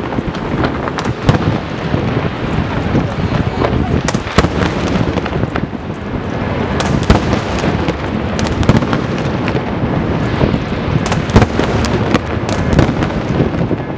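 Aerial fireworks display: shells bursting overhead in quick succession, many sharp bangs over a continuous loud din.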